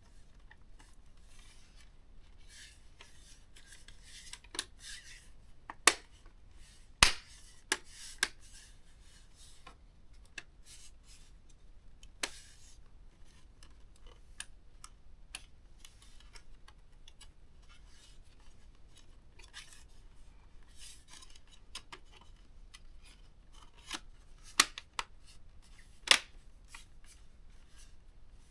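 ThinkPad T430 laptop's plastic case parts being pushed and snapped back together: light scraping and rubbing of plastic, with scattered sharp clicks as clips seat, the loudest in a cluster about six to eight seconds in and again near the end.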